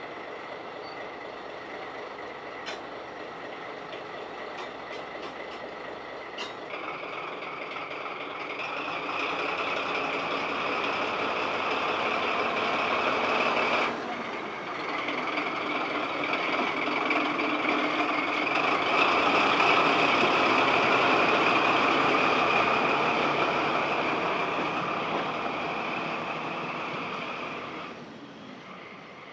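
Diesel engine of an ex-JNR DD13-type diesel-hydraulic shunting locomotive, running and growing louder through the middle, with a steady high whine over it. A few sharp clicks come in the first few seconds.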